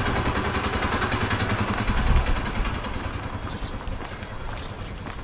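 A motor vehicle's engine running with a rhythmic low pulse, fading away from about two seconds in. A few faint short high chirps come near the end.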